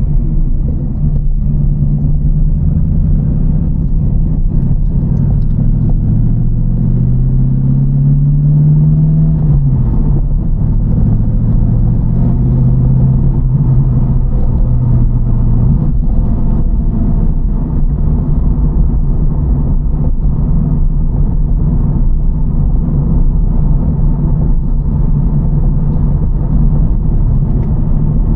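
TVR Chimaera's bored-out 4.65-litre V8 engine running while the car is driven. Its note rises in pitch from about six seconds in, drops back about nine seconds in, then holds at a steady cruise.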